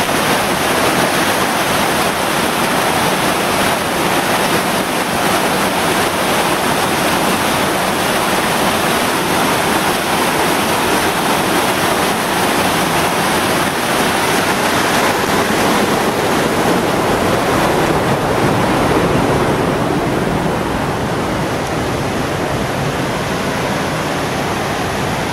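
Creek water rushing and splashing down small cascades between rocks, a loud, steady rush of water. Its hiss softens a little about twenty seconds in.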